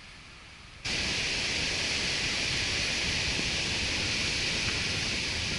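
Steady rushing noise of wind and breaking sea surf, cutting in abruptly about a second in after a faint outdoor background.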